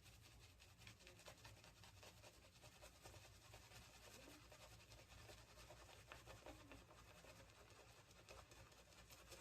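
Faint, fine scratchy brushing of a shaving brush being worked round and round in shaving-soap lather while the lather is built up.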